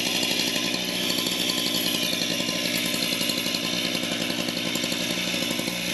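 Stihl two-stroke petrol cut-off saw idling steadily, not yet cutting.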